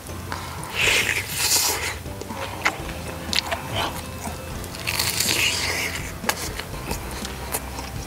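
Crisp crunching of a deep-fried battered vegetable fritter (twigim) being bitten and chewed close to the microphone, in two bouts, about a second in and again about five seconds in, with small mouth clicks between.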